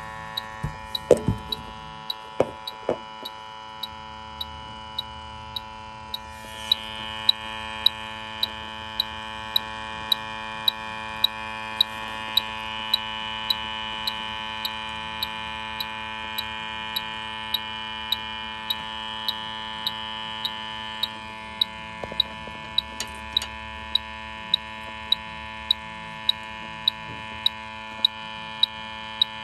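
Electronic refrigerant leak detector beeping at a steady, even rate of about one and a half short high beeps a second as its probe is moved around an evaporator coil, searching for a refrigerant leak. Underneath is a steady hum of several tones.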